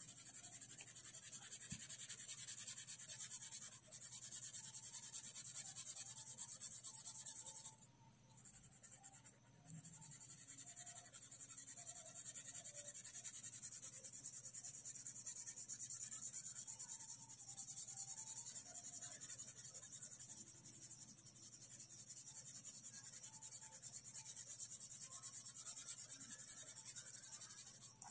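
Orange sketch pen (felt-tip marker) rubbing on paper in quick back-and-forth colouring strokes: a steady scratchy hiss that stops briefly a few times, longest for about two seconds some eight seconds in.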